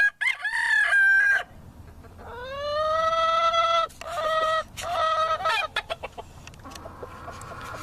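Game fowl roosters crowing and clucking: a short call at the start, then one long crow about two seconds in that rises and then holds, followed by broken calls. A few wing flaps can be heard among them.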